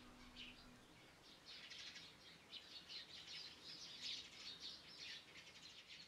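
Faint high chirping of small birds, in quick clusters of short notes.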